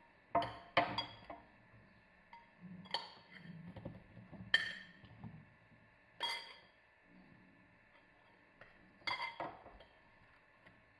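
A metal spoon clinking against a terracotta bowl in a series of irregular, sharp clinks as marinated mushrooms are spooned out onto a baking tray.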